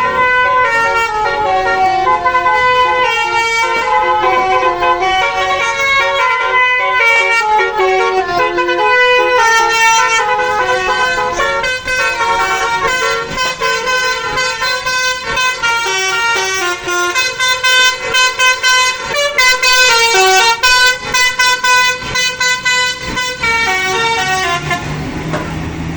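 Indonesian bus basuri horn, the multi-tone 'telolet' horn, playing a long melody of changing notes, with a run of short, choppy blasts in the last third before it stops near the end.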